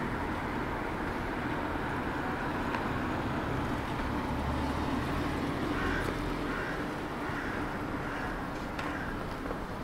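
Steady street background with the rumble of a passing vehicle, which swells about halfway through.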